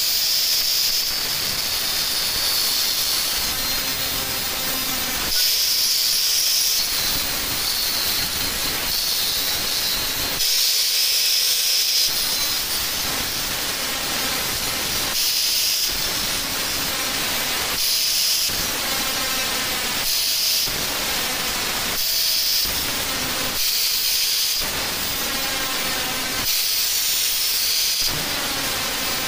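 Angle grinder running with its disc cutting into a stainless-steel corrugated exhaust flex pipe. A continuous hissing grind of disc on metal swells and eases every two to three seconds.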